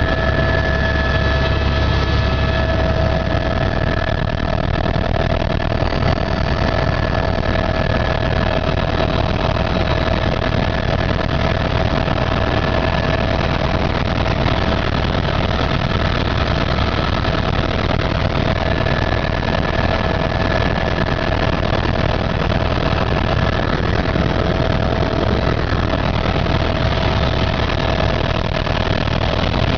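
Helicopter turbine engine and rotor running steadily: a constant low drone with a steady high whine over it.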